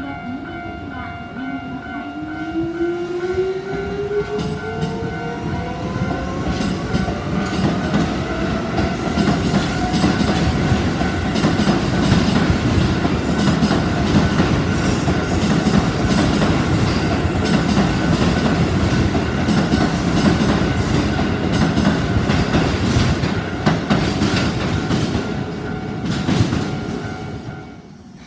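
Japanese level-crossing warning bell ringing steadily while an electric train passes: a rising motor whine as the train picks up speed, then loud running noise with rapid wheel clicks over the rail joints. The bell and the train noise stop shortly before the end.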